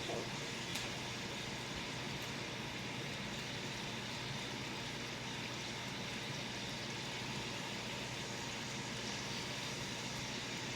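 Steady background hiss and room noise with no distinct handling sounds, and one faint click about a second in.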